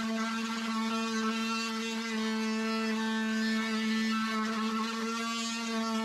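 Ryobi cordless oscillating multi-tool running with a steady, even-pitched buzz as its blade cuts into a wooden board.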